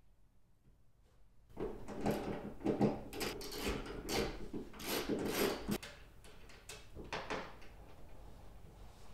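Rustling and scraping of a car's floor carpet and sound-deadening padding being pulled back and held by hand, in irregular strokes for about four seconds, then a few fainter ones.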